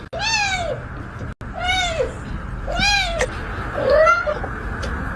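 Domestic cat meowing four times, about a second apart. Each meow rises and then falls in pitch, a call heard as "mama".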